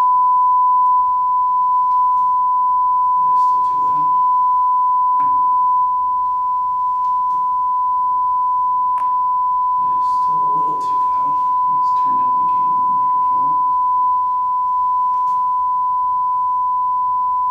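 Steady 1 kHz sine-wave test tone played through a Hale Dreamer Bluetooth speaker, held at one pitch to set the recording level. Fainter room sounds and a click come and go underneath.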